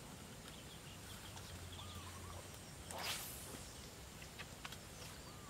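A fishing rod swished through the air in a cast, one short whoosh about three seconds in, over faint chirps of birds.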